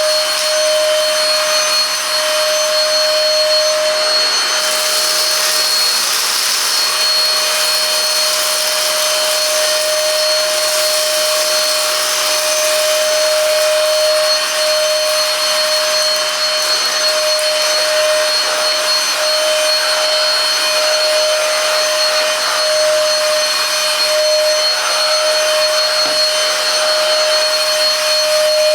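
Silvercrest Cordless Cyclone cordless vacuum cleaner running steadily, its motor giving a constant whine over the rush of air.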